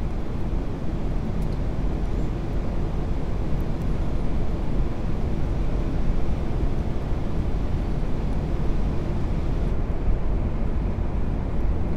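Steady rushing of airflow and engines heard on the flight deck of an Airbus A380 on final approach, gear down and flaps full. The hiss thins a little about ten seconds in.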